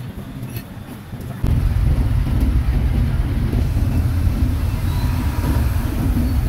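Road traffic noise with a low engine rumble that suddenly gets much louder about a second and a half in.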